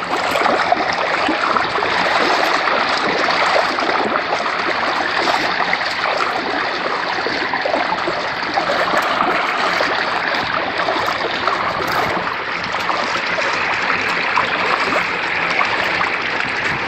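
Water running steadily through a shallow hatchery raceway, with an even babble and no pauses.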